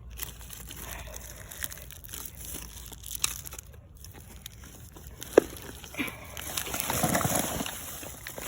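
Rustling and scraping of digging through dump debris by hand, with scattered small clicks and one sharp click about five seconds in, and a louder stretch of scraping near the end.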